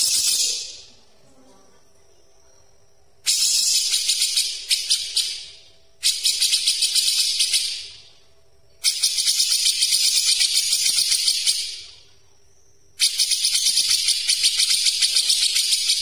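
Caged cucak jenggot (grey-cheeked bulbul) giving its fast, tight rattling chatter: five harsh bursts of rapid-fire notes, each two to three seconds long, with short pauses between.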